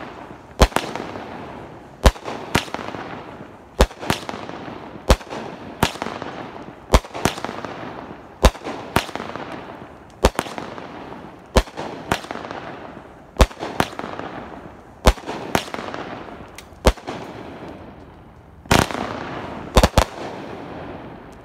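A Neon Splatter firework cake firing in sequence: about twenty sharp bangs, often in pairs, every half second to second and a half. Each bang trails off in a fading crackle of bursting stars, and a broader, louder burst comes near the end.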